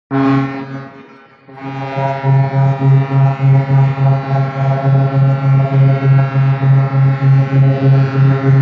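Boat horn of a Guardia di Finanza and coast guard launch sounding in salute: a blast that dies away about a second in, then a long held blast with a regular wavering about three times a second.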